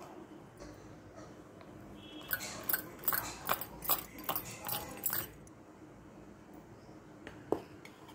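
Plastic spice packet crinkling and tapping as masala is shaken out of it over the chicken: a string of sharp rustles lasting about three seconds, then a single click near the end, over a faint steady hum.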